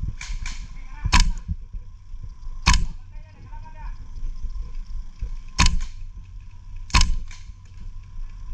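GHK M4 gas blowback airsoft rifle firing single shots: four sharp cracks a second or more apart, with a few fainter clicks near the start.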